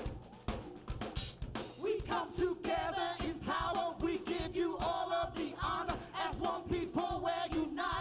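Live praise-and-worship band with the drum kit to the fore, playing a driving beat with a cymbal crash about a second in. From about two seconds in, voices sing and shout over the drums.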